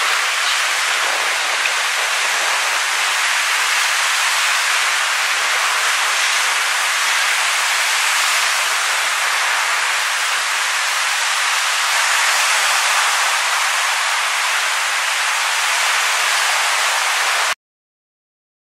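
Lake Superior waves breaking and washing over a pebble shore: a steady, loud hiss of surf that cuts off suddenly near the end.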